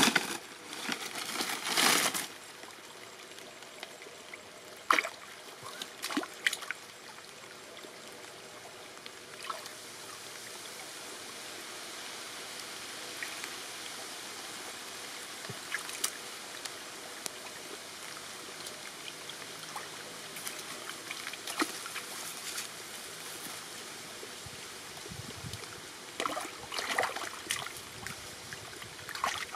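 Shallow stream water trickling steadily, with bare hands splashing and scooping in the water a few times, the loudest splashes near the start and again near the end.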